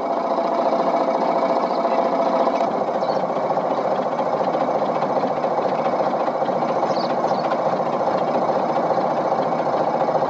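A narrowboat's diesel engine running steadily, a fast even clatter.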